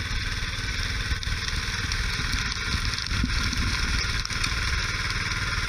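Gas engine of a walk-behind power trowel running steadily while it finishes the concrete slab.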